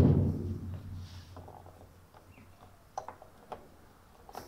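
Plastic covers being fitted back onto a washing machine's top panel: a knock that rings out over a second or so, then a few small clicks about three seconds in.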